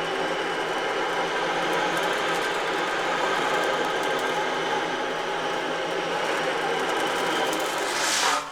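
Remo 12-inch ocean drum being tilted so the metal beads inside roll across the plastic head, making a steady, even, surf-like wash. It swells brighter just before the end.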